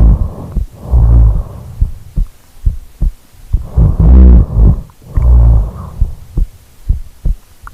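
A person snoring, recorded close up: loud, low rumbling snores up to about a second long, at the start, about a second in, and twice more around four and five seconds in, with short low thumps in between.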